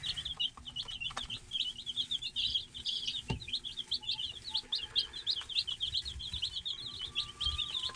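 A brood of day-old chicks peeping continuously, many rapid high chirps overlapping, with a few faint taps.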